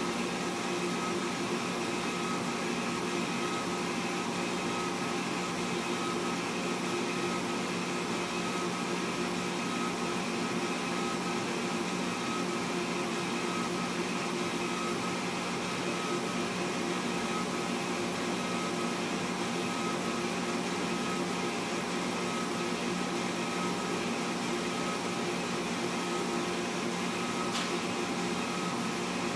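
Laser engraver running as it engraves a skateboard deck: a steady whirring hum with a few held tones.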